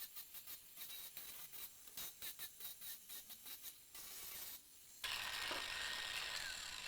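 Wood being sanded in quick back-and-forth rasping strokes, about three or four a second, which stop a little past halfway. About five seconds in, a steady hiss takes over.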